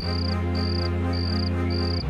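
Cricket chirping in short trills, about two a second, over background music of sustained low tones.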